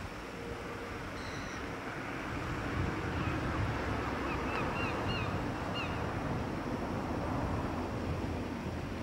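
Seaside ambience: wind buffeting the microphone over a steady wash of sea, with a few short high chirps about halfway through.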